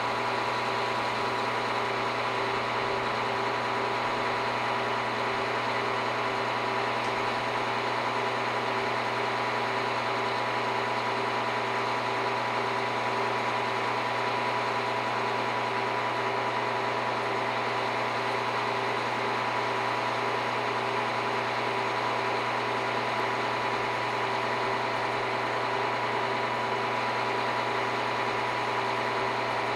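Heavy machine's engine running steadily, with a constant high whine over it and a fast, even pulsing beneath.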